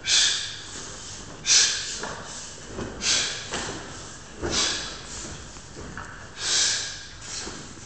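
A martial artist's sharp, forceful exhalations, one with each technique of the form, about every one and a half seconds, five in all.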